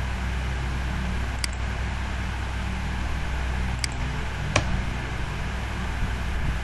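Steady low hum and hiss of background noise, with three short sharp clicks in the middle stretch: computer mouse and keyboard clicks while text is edited.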